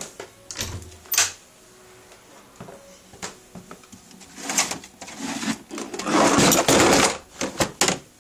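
Scattered clicks and knocks of objects being handled, then a loud rustling, tearing noise lasting about a second, and a few sharp clicks near the end.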